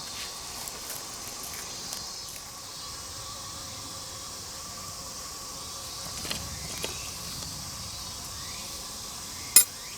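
Wood fire crackling with scattered pops, one sharp loud pop near the end, over a steady high chirring of insects.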